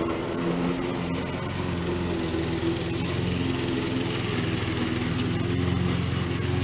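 Gasoline lawn mower engine running steadily while mowing grass.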